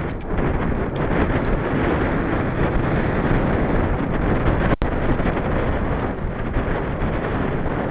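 Steady wind rushing over the microphone of a camera carried on a moving bicycle, with a momentary dropout a little past the middle.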